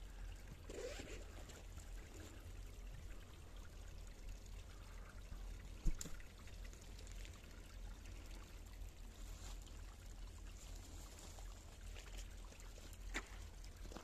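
Faint snowy-forest ambience: a steady low rumble and an even hiss, with one sharp tap about six seconds in and a softer one near the end.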